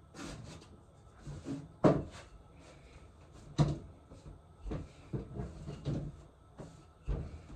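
Kitchen worktop handling while chapati dough is shaped by hand: two sharp knocks on the counter, about two seconds in and again past three and a half seconds, then a run of softer thumps and rubs as the dough is pressed and turned.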